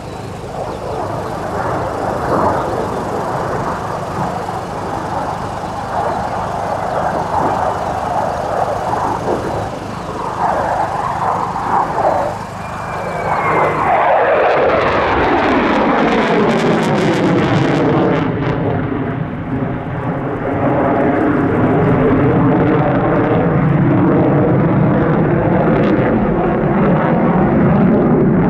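The twin jet engines of an F/A-18C Hornet fighter in a display flight. The rushing jet noise grows louder about halfway through as the jet passes close overhead. From then on it stays loud, with sweeping tones that fall in pitch.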